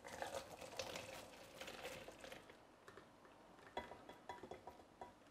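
Faint pouring of thick puréed chili sauce from a pot through a wire-mesh sieve into a plastic measuring jug, followed by a few light clicks and taps in the last second or so.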